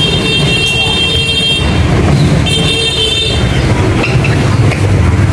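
Chainsaw engine running under load, with two spells of a high whine, the first about a second and a half long and a shorter one near the middle.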